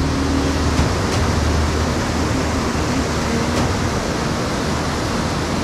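Steady rush and roar of whitewater pouring over rock ledges in a river rapid running at a good level.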